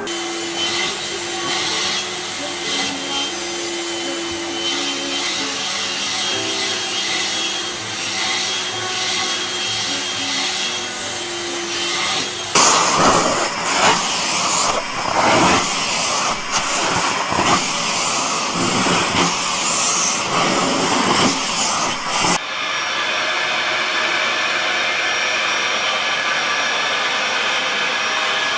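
Household vacuum cleaners running, heard in three short segments that cut one into the next. The middle segment is louder and surges unevenly; the last runs steady and even.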